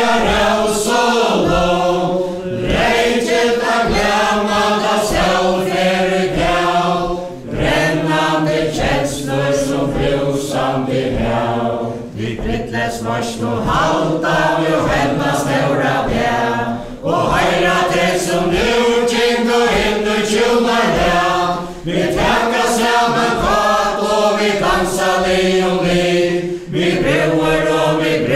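A mixed group of men and women singing a Faroese chain-dance song together, unaccompanied, line after line with a short break about every five seconds. The dancers' steps beat time faintly underneath.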